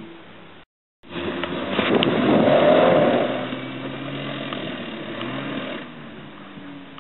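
Off-road truck engines revving hard under load during a tow-strap recovery: a lifted Jeep Cherokee XJ pulling a Toyota pickup stuck in mud. After a brief dropout just under a second in, the engine noise swells, rising and falling in pitch, loudest about two to three seconds in, then settles lower.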